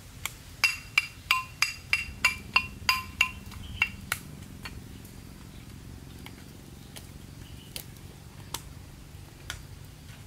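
Pestle pounding in a metal mortar: about a dozen sharp, ringing metallic clinks, roughly three a second, over the first four seconds, then only a few faint scattered ticks.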